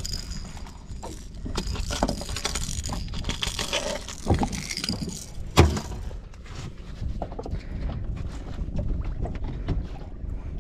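Handling noises from a large king fish being moved about on a plastic board, with a metal lure's hooks and rings clinking. There are scattered knocks, one loud one about five and a half seconds in, over a steady low rumble.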